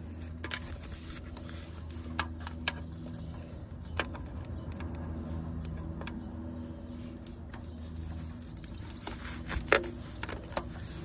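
Scattered sharp metallic clicks and light scrapes as a replacement knock sensor is worked by hand up against the engine block of an Acura RSX, with a louder cluster of clicks near the end. A steady low hum runs underneath.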